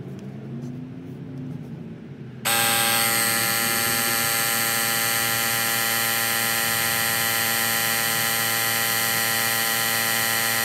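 Cordless tyre inflator's small air compressor switching on about two and a half seconds in and running steadily while it pumps up a car tyre, a loud buzzing whine made of many steady tones. Before it starts there is a quieter, wavering sound.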